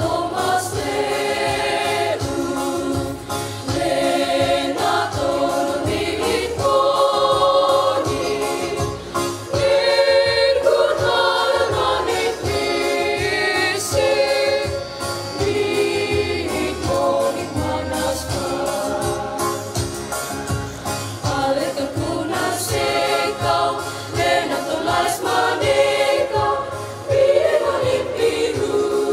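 Youth church choir of girls and boys singing a hymn together, holding long sung notes that change pitch from phrase to phrase.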